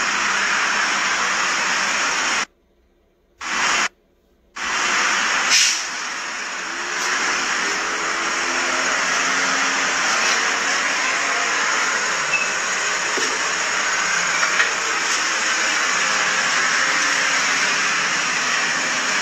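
Steady, loud hiss of noise with no speech. It cuts out to silence twice, briefly, at about two and a half and four seconds in.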